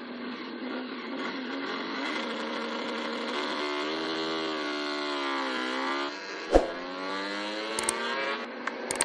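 MotoGP racing motorcycle engine heard on a trackside broadcast feed: its pitch drops as the revs come down, then climbs again as it accelerates. A sharp click sounds about six and a half seconds in, and a few smaller ones follow near the end.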